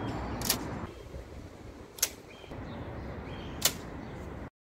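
Three sharp snaps, about a second and a half apart, from a rubber-band-powered origami paper airplane launcher firing, over steady outdoor background noise. The sound cuts off suddenly near the end.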